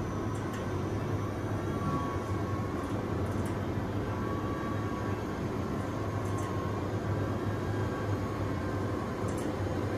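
Steady drone of factory machinery with a low hum, unchanging throughout, and a few faint high ticks.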